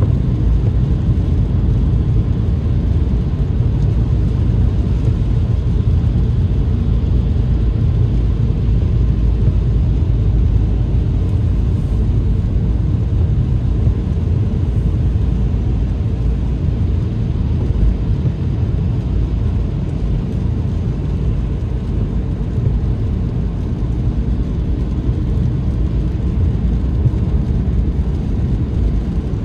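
Car driving along a road: a steady low rumble of tyres and engine that holds level throughout.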